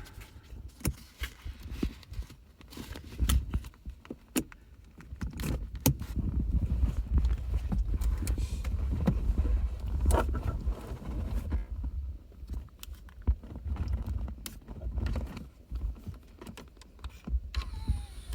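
2016 Audi A7 gear shift knob being worked back down onto the shift lever: irregular plastic clicks, knocks and rattles over a low rumble of handling noise.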